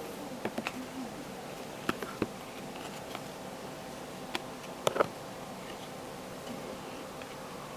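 Trading cards being handled and set down on a table: a few scattered light clicks and taps, the loudest pair about five seconds in, over a steady background hum.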